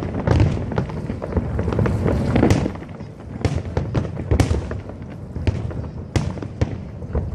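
Fireworks display: a rapid string of sharp bangs and crackles over low booming, busiest and loudest in the first three seconds, then thinning to scattered cracks.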